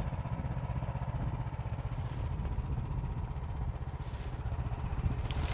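A vehicle's engine running steadily at idle, an even fast low pulse, with a brief click near the end.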